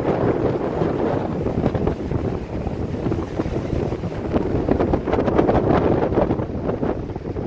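Storm wind of about 40–50 mph buffeting the microphone in heavy gusts, with large lake waves breaking underneath.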